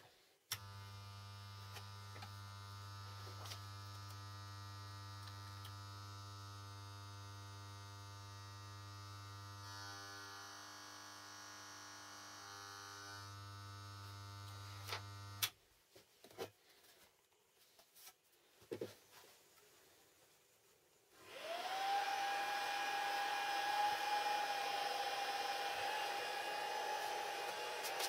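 A switch clicks on and the two microwave-oven transformers of a homemade arc welder hum steadily at mains frequency, running without load while its open-circuit output of about 40 V is measured. The hum stops with a second click about 15 seconds in. Near the end a small motor whirs up to speed and runs steadily.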